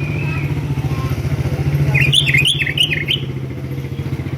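A sooty-headed bulbul sings a short phrase of quick warbled notes about two seconds in, over the loud steady drone of an idling engine.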